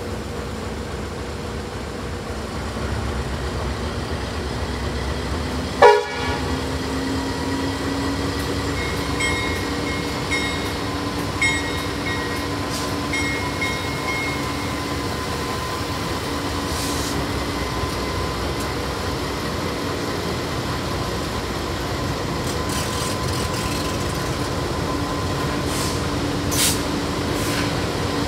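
Pacific National NR-class GE diesel-electric locomotives running steadily as they pull slowly past with a freight train. The engines' note climbs slightly about six seconds in, with a brief sharp toot at the same moment. Faint, on-and-off high squeals come a few seconds later.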